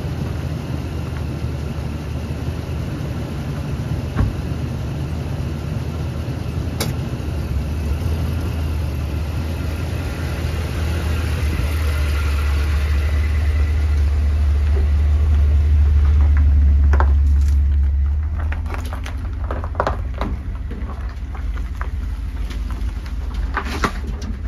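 Ford F-250 pickup driving slowly over the camera on gravel, its engine and exhaust a steady low rumble. The rumble grows louder as the truck passes overhead and drops off about two-thirds of the way through. The trailer wheels then roll over, with gravel crunching and popping under the tyres.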